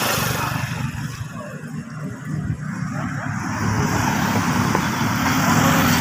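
A car driving past close by on a paved road, its engine and tyre noise building steadily in loudness.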